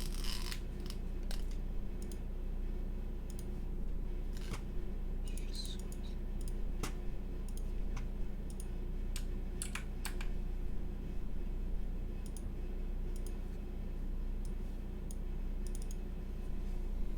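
Scattered clicks of a computer mouse and keyboard keys, single or in short clusters, over a steady low hum.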